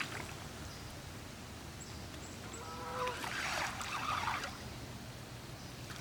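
A goose honks once about three seconds in, followed by about a second of splashing water.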